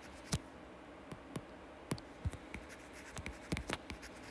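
A stylus tapping and scratching on a tablet screen during handwriting: a series of faint, irregularly spaced clicks.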